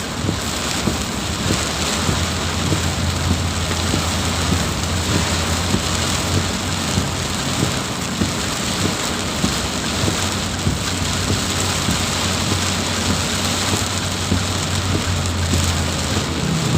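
Heavy rain pouring down, with many small drop hits on a surface, and a steady low hum underneath through most of it.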